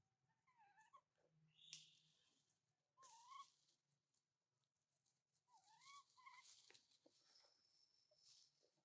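Faint, high-pitched whining calls from an animal in three short bouts, each bending up and down in pitch, with soft rustling between them.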